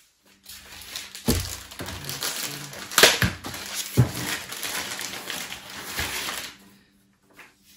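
Packaging crinkling and rustling as it is handled, with several knocks, the loudest about three seconds in.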